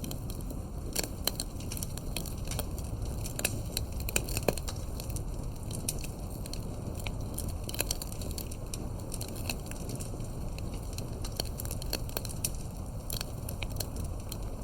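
Campfire burning, crackling with irregular snaps and pops, some louder than the rest, over a steady low rumble.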